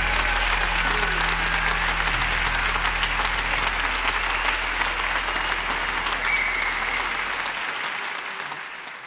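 Auditorium audience applauding after a performance, dense clapping that dies away near the end.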